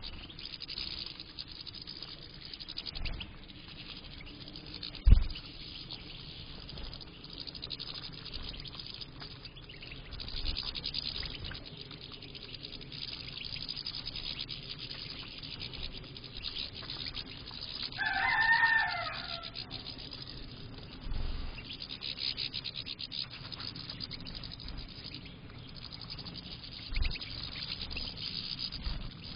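A room of European goldfinches chattering and twittering as they feed, with a dense, constant high ticking and a few low thumps, the loudest about five seconds in. About eighteen seconds in, a rooster crows once, a falling call lasting about a second and a half.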